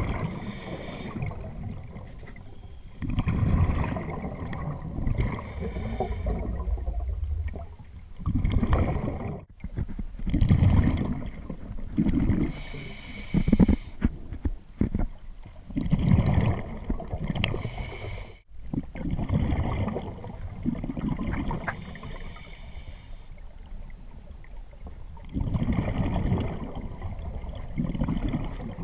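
Scuba diver breathing through a regulator underwater: a short hiss on each inhale, then a low bubbling rumble as the exhaled bubbles vent, repeating every few seconds.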